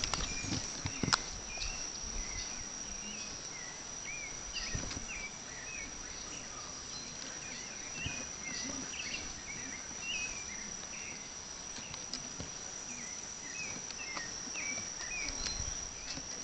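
Rainforest insect chorus: a steady high-pitched insect trill, with many short chirps scattered through it. A sharp click about a second in.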